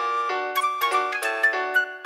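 Light background music: a run of quick, bright notes with no deep bass.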